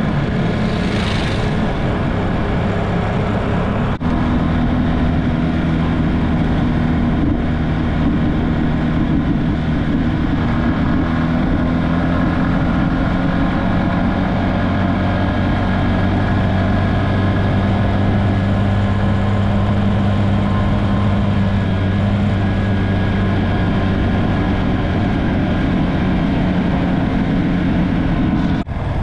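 Motorcycle engine running at a steady cruising speed while riding, over road and wind noise. There is a brief whoosh about a second in and short dips in the sound about four seconds in and near the end.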